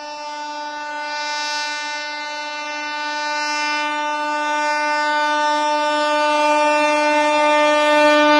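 Horn of an approaching suburban electric local train held in one long unbroken blast, a single steady note growing louder as the train nears.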